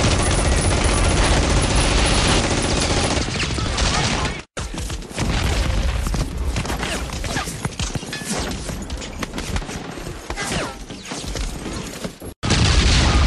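Gunfire: dense rapid volleys of shots. Twice the sound drops to dead silence for an instant, once about four seconds in and once near the end. In the middle part the shots come sparser and separate.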